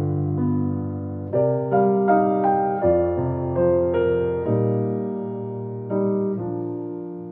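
Background piano music, a slow gentle melody of single notes and chords that each ring and fade.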